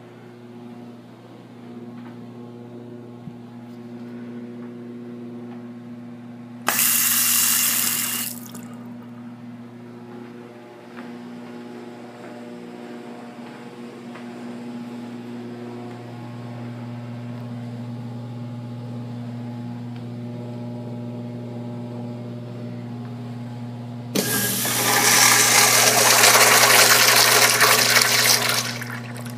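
Kohler Dexter urinal flushing near the end: a loud rush of water lasting about five seconds. Earlier, about seven seconds in, a shorter loud rushing noise of under two seconds, over a steady low hum.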